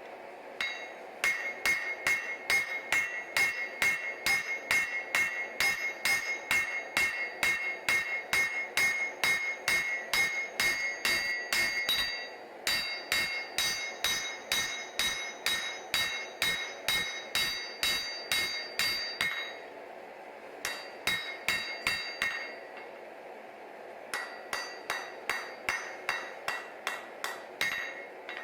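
Hammer blows on hot Damascus steel over an anvil, forging a chef knife's tang: steady strikes about two to three a second with a ringing tone, in four runs broken by short pauses.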